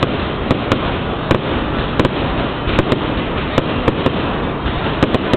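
Fireworks display: a continuous rumble and crackle of bursting shells, with sharp, irregular bangs about twice a second.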